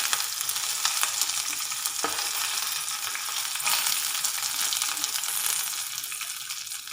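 Curry leaves and dried red chillies sizzling and spluttering as they go into hot oil with roasting urad dal in a kadai, with scattered crackles; the sizzle eases a little near the end.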